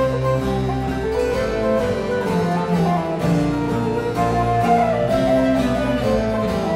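Baroque ensemble playing an 18th-century Irish tune: harpsichord, with baroque transverse flute and bowed strings, a busy run of many notes with no singing.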